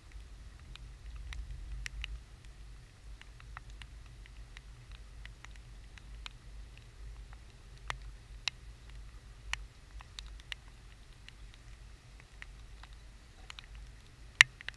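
Scattered, irregular raindrop ticks and taps on the camera, with one sharper tap near the end, over a low steady rumble.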